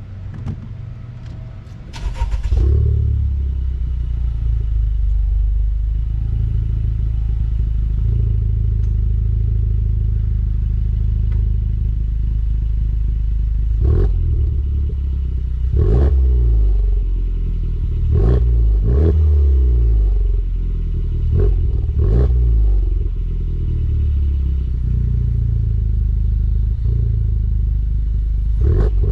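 Honda Civic Type R's 2.0-litre turbocharged four-cylinder through a GReddy Supreme SP straight-through cat-back exhaust, with a 3-inch front pipe. It gets suddenly louder about two seconds in and idles steadily. Over the second half it is blipped about seven times in quick succession, each rev rising and falling back to idle, with one more rev near the end.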